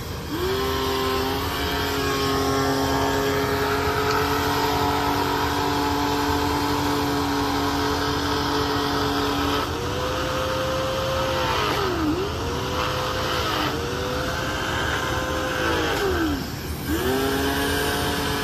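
Electric pressure washer running, its motor humming at a steady pitch over the hiss of the water jet. Several times the motor's pitch sags and climbs back, as it does when the spray gun trigger is let go and squeezed again.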